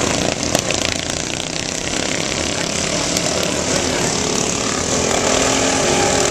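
Several racing riding lawn mowers' small engines running steadily at speed, a continuous drone that grows a little louder near the end.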